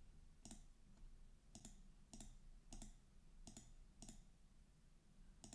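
Faint computer mouse clicks, about seven single clicks roughly a second or less apart.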